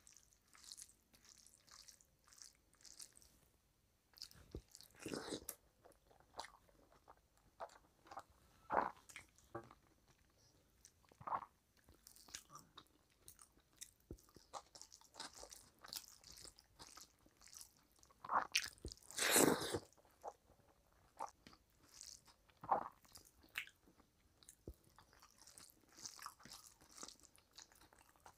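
Close-miked eating sounds of rice and curry eaten by hand: chewing and biting, with fingers mixing rice on the plate. The sounds come in short irregular bursts, with a louder burst about two-thirds of the way through.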